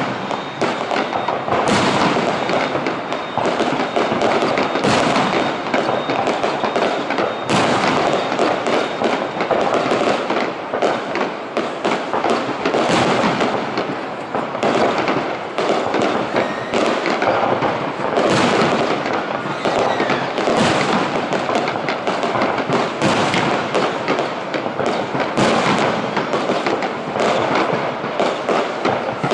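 Aerial fireworks display going off in a continuous barrage: many overlapping bangs and crackles, one after another, with no pause.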